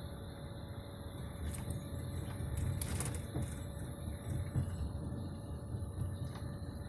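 Cabin noise inside a moving coach bus: a steady low rumble of road and engine, with a burst of clicks and rattles about one and a half to three seconds in and a couple of lone clicks later.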